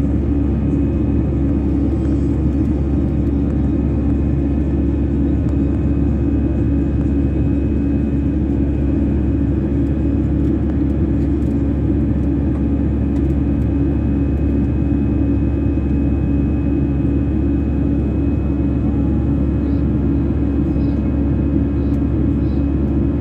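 Airbus A320 turbofan engines at climb thrust heard from inside the passenger cabin: a loud, steady drone with a constant hum.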